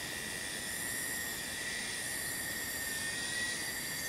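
Insects droning steadily in the vegetation: a high-pitched chorus with a steady whine and a shimmer above it that swells and fades every second or so.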